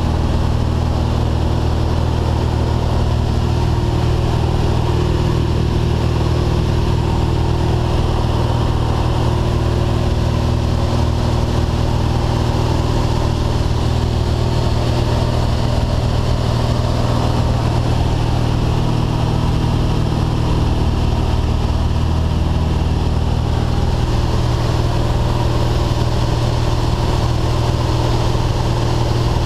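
Engine of a small skydiving aircraft running steadily in flight, a constant low drone heard from inside the cabin.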